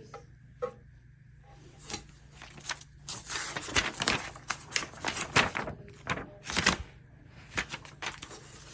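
Irregular sharp clicks and short rattles coming in quick runs, over a steady low hum.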